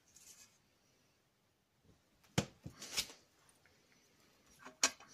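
A few short, sharp knocks and light clicks of a clear acrylic stamp block and craft supplies being handled and set down on a cutting mat, about halfway through and again near the end.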